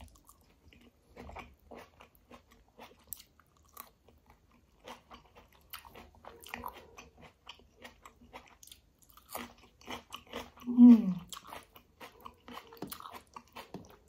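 Close-miked eating with the hands: biting and chewing tomato slices and kadhi with rice, many small wet mouth clicks. About eleven seconds in, one short, loud sound drops in pitch.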